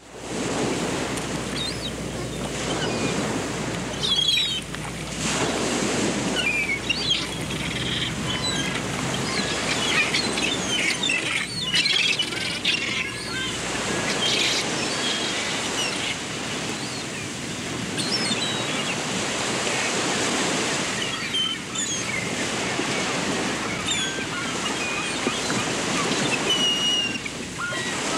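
Waves washing onto a beach, with birds chirping throughout. The sound fades in quickly at the very start.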